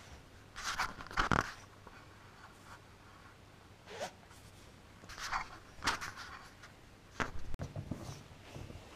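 A puppy nosing and pushing a small camera on the floor: scattered rustles, scrapes and knocks against the camera, in a few short clusters about a second in, around four seconds, five to six seconds and seven to eight seconds.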